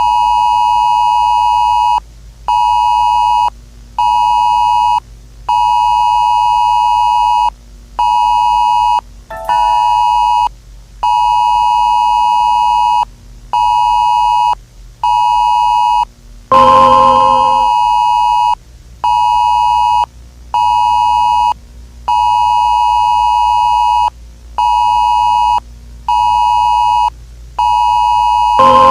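Emergency-alert-style electronic tone: a loud, steady high beep that switches on and off in irregular stretches of about half a second to two seconds. A louder ringing sound cuts in twice, about halfway through and at the end.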